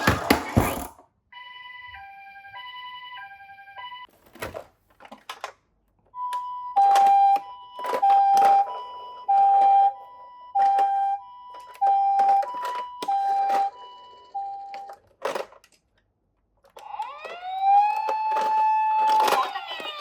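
Japanese-style two-tone ambulance siren alternating between a high and a low note, faint at first and then louder from about six seconds in, mixed with sharp knocks and clatters of small toy cars. After a short gap near the end, a wailing siren rises in pitch and holds.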